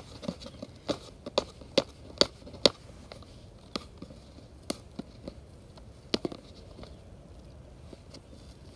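Cardboard box being pried open by hand: sharp, irregular clicks and snaps of fingers and nails working at the flap, several in quick succession over the first few seconds, then a few scattered ones.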